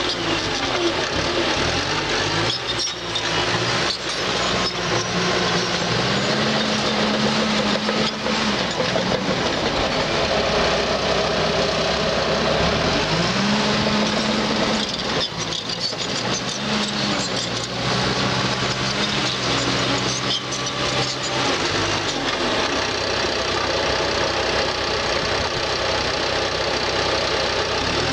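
Bulldozer's diesel engine running under load as the dozer works over a hill, revving up and settling back down several times.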